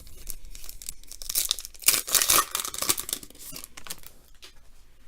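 A trading-card pack wrapper being torn open and crinkled, loudest about two seconds in.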